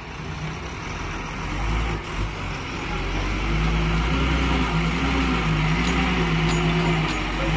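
Diesel engine of a tarp-covered goods lorry running as the truck drives slowly forward. It grows louder over the first three seconds as the truck comes close, then holds a steady drone.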